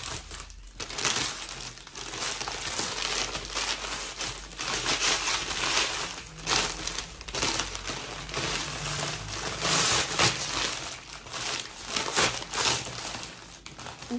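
Crinkly gold metallic wrapping of a Ferrero Rocher chocolate Easter egg crinkling and crumpling as it is pulled off and bunched up by hand, in a long run of irregular crackles.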